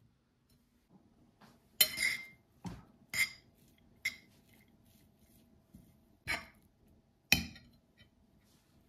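Metal fork clinking against a ceramic plate while stirring crumbled cheese and chopped parsley, about six sharp clinks at uneven intervals with soft scraping between them.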